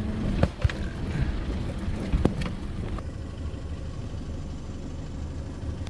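Car driving slowly on a rough, potholed dirt road, heard from inside the cabin: a steady low rumble of engine and tyres, with a few sharp knocks in the first couple of seconds.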